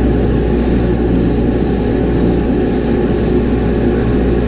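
Airbrush spraying paint onto a fishing lure in about six short bursts of hiss, quick passes a fraction of a second each, over a steady low hum from the spray booth.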